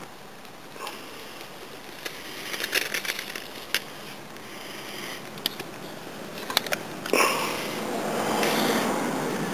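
Small dry-grass tinder bundle burning, with scattered crackles and pops. About seven seconds in, a steady rushing noise comes up and becomes the loudest sound.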